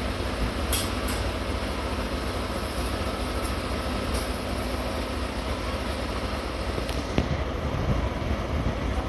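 DE10 diesel locomotive idling at a standstill: a steady deep engine rumble, with a few brief high-pitched hisses over it.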